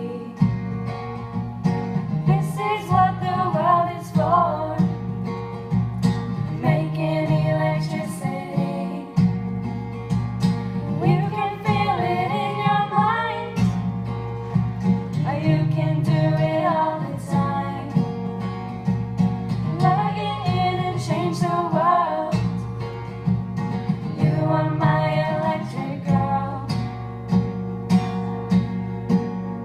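Song with a voice singing over guitar accompaniment and steady low bass notes.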